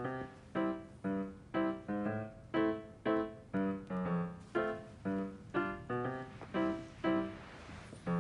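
Background piano music: a light melody of single notes struck at an even pace, about two a second, each ringing and fading.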